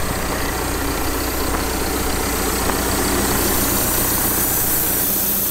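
Caterpillar backhoe loader's diesel engine idling steadily.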